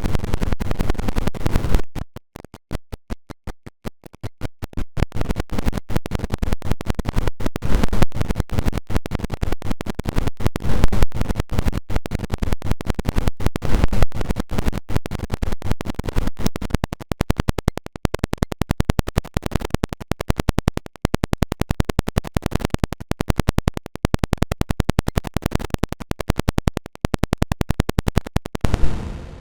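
An Android alarm tone remixed YTPMV-style into electronic music, chopped into rapid stuttering repeats that sound like record scratching. The chopping thins out about two seconds in, grows denser and faster about halfway through, and stops just before the end.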